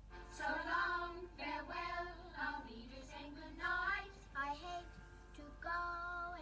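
A recorded song playing: a high singing voice sings short phrases over music, holding a long note near the end.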